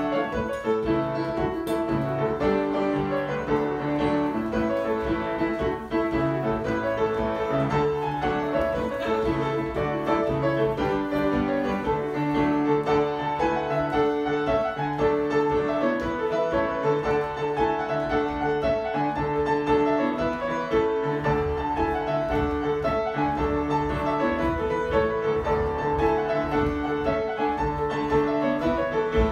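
Piano playing a jig tune for Scottish country dancing, with a steady, even beat.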